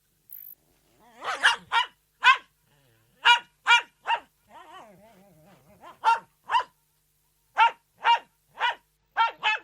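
Poodle barking: a series of short, sharp, fairly high-pitched barks, about fourteen in all. They start about a second in, come in irregular bursts of two or three, and are broken by a quieter, lower grumble about halfway.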